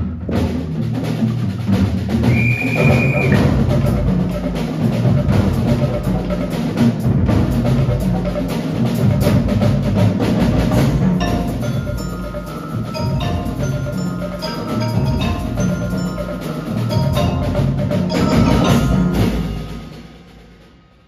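Percussion ensemble playing a contemporary piece for unpitched percussion: dense drumming with wood-block and metallic strokes, a high held tone of about a second at around two seconds in, and short bright strikes through the middle, dying away over the last two seconds.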